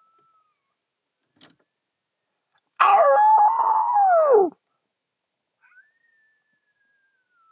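Coyote howls. A faint, thin, long-held note sounds at the start and again from near the middle to the end, sinking slowly in pitch. About three seconds in comes one loud wavering howl, a second and a half long, that falls away steeply in pitch at its end and sounds pained.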